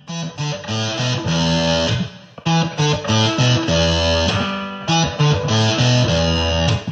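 Background music led by guitar, with a bass line, pausing briefly a little over two seconds in.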